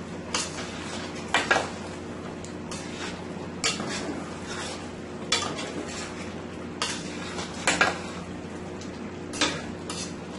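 A spoon stirring chicken curry in a large stainless steel pot, scraping and knocking against the pot at irregular intervals, about ten times, over a steady low hum.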